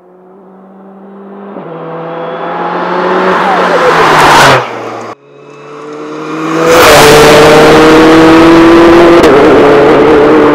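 Hyundai RM19 mid-engined prototype's turbocharged four-cylinder engine accelerating hard, its pitch climbing between gear changes as it grows louder. About four and a half seconds in it drops away abruptly. A second run then builds to full loudness and holds at high revs.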